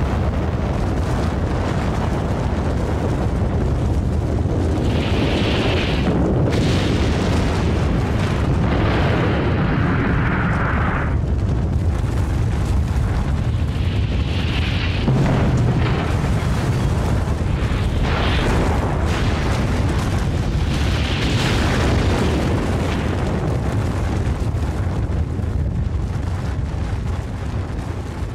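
Film sound effect of a huge explosion and its blast wave: a long, loud, continuous rumble with several swells, easing off near the end.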